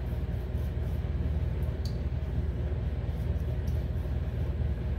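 Steady low mechanical hum, as of a running appliance or fan, with one faint click about two seconds in.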